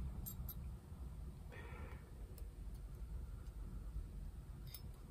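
A few faint, sharp metallic clicks as a small spring is worked into place in an old combination wrench, over a low steady rumble.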